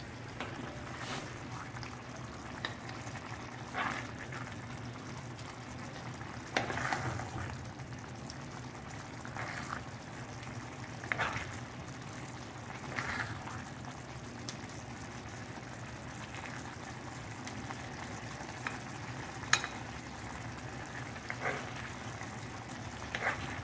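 Potato stew in chile sauce bubbling gently in a frying pan. A wooden spoon scoops through the sauce and scrapes against the pan and a ceramic plate, making a short scrape or knock every few seconds.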